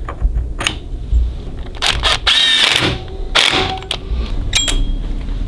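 Sharp metallic clicks, clinks and knocks of engine parts and hand tools being handled, with a louder clattering stretch about two to three seconds in. The cam sprocket of a Harley-Davidson Milwaukee-Eight engine is being shimmed to line up the cam chain.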